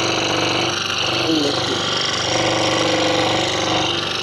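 Scroll saw running steadily and cutting a wooden puzzle blank: a constant motor hum with the rapid chatter of the reciprocating blade.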